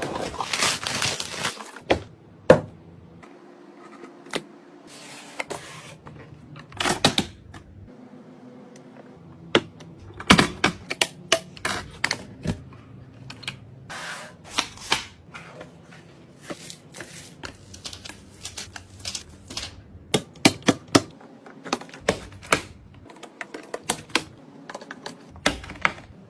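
Irregular clicks, taps and knocks, with a stretch of rustling in the first two seconds, as computer parts are handled and fitted during a PC build.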